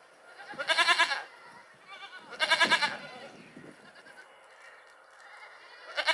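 An animal giving three loud, wavering bleat-like calls, each about half a second long, spaced roughly two seconds apart.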